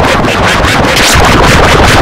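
Harsh, loud, heavily distorted and clipped noise pulsing fast, several pulses a second. It is a cartoon soundtrack mangled by stacked digital audio effects.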